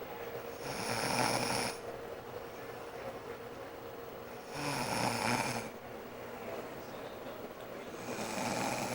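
A woman snoring in her sleep: three snores, each about a second long, coming roughly every three and a half to four seconds.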